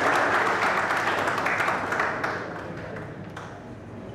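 Audience applauding, the clapping dying away about two seconds in.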